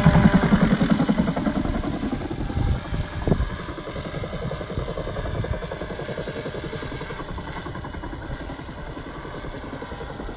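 Radio-controlled scale Bell UH-1 Huey helicopter flying past with its onboard Huey sound system, a rhythmic rotor chop that is loud at first and fades as it flies away. There is a short thump about three seconds in.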